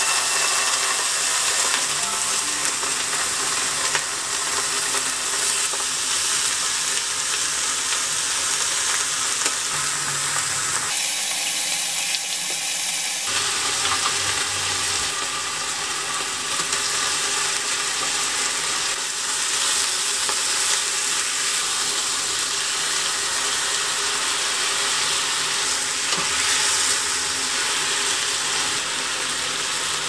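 Thin beef slices, later joined by sliced eggplant, frying in oil in a nonstick frying pan: a steady sizzle. It thins out briefly about eleven seconds in.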